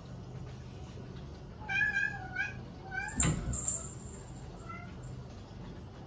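Domestic cat meowing: three short, high meows in quick succession, then two faint ones near the end. A single sharp thump comes about three seconds in.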